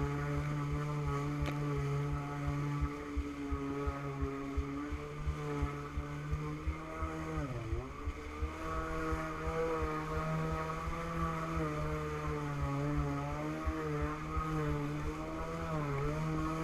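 Stand-up jet ski engine running at a steady speed. The pitch drops sharply about halfway through as the throttle eases off, then comes back up, with a couple of smaller dips near the end.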